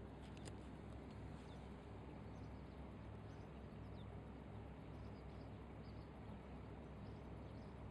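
Faint, steady low hum and hiss with scattered short, high chirps from small birds.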